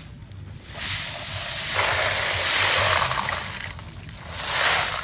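Live snails poured from a mesh bag into a plastic basin of water: a rush of rattling shells and splashing water, one long pour and then a shorter one near the end.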